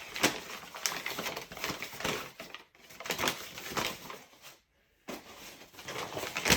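Plastic dishwasher parts and their packaging being handled and rummaged through: irregular rustling and crinkling with small plastic clicks, cutting out briefly near the five-second mark.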